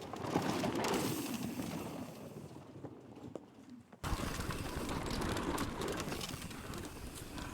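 Mountain bike tyres crunching and sliding over a dry, dusty dirt trail as a rider passes. About four seconds in the sound cuts abruptly to another stretch of trail riding noise with a low rumble.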